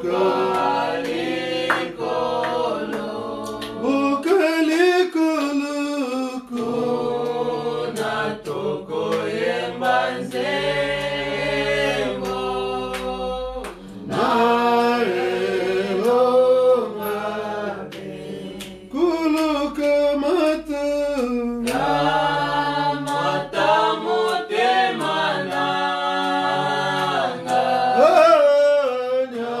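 Unaccompanied hymn singing, voices holding long notes in slow phrases with short breaks between them.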